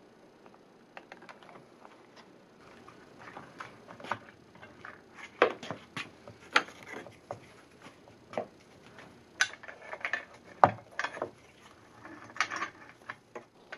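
Irwin Quick-Grip one-handed bar clamps being set and squeezed tight: trigger clicks and ratcheting, with the metal bars clacking against each other and the bench in scattered sharp knocks that grow more frequent from about five seconds in.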